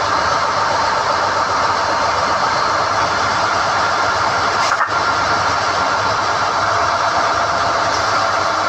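SDH-1600 core drilling rig running steadily while NQ drill rods are hoisted from the hole, with one brief knock about five seconds in.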